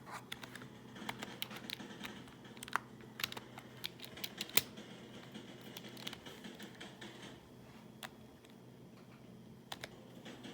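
Typing on a computer keyboard: a quick, uneven run of key clicks for the first half, thinning to a few scattered keystrokes.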